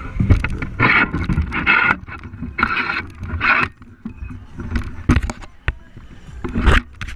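Movement noise on a GoPro carried on a selfie stick by a running racer. Rhythmic rushes of noise come about one every 0.8 s, then a few sharp knocks as the camera swings about.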